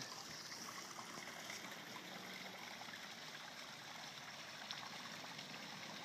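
Garden pond waterfall: water running steadily and faintly over rocks.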